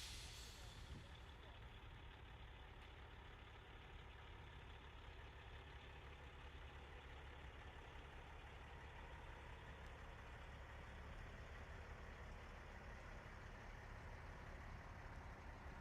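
Faint, steady low rumble of big-rig diesel truck engines running slowly.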